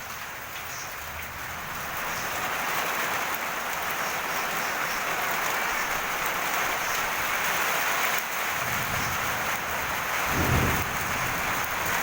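Steady rain falling on the garden, a dense hiss that grows heavier about two seconds in. A low rumble swells near the end and fades.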